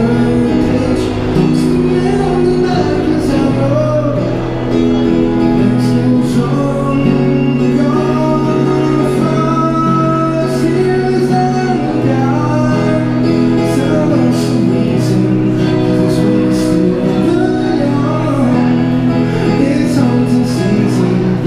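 A male singer sings a song over his own strummed acoustic guitar through a microphone, the sound echoing in a large tiled station hall.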